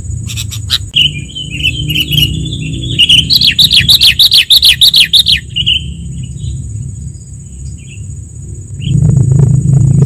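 Sooty-headed bulbul (kutilang) calls from a lure recording: a rapid run of chattering chirps, loudest in the middle, then a few scattered notes. A steady high-pitched whine sits underneath, and a low rumble swells near the end.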